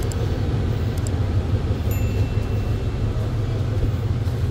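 Steady low rumble and running noise of a moving vehicle, with a few faint clicks.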